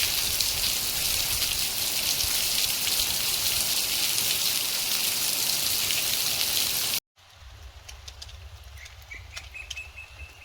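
Steady rain hiss that cuts off abruptly about seven seconds in. It is followed by a much quieter stretch with scattered sharp clicks, a low steady hum and a faint rising whistle.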